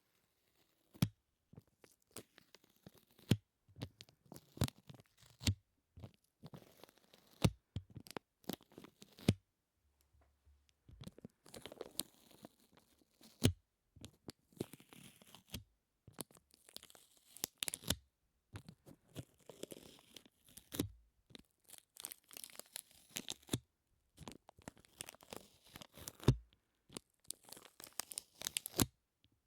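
Close-miked sticky sounds: something tacky pressed and peeled away again and again, giving irregular crackly tearing and clicking noises, with a short pause about a third of the way in.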